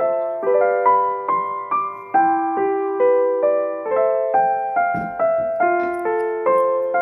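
Background music: a gentle electric piano playing a steady run of notes, about two a second.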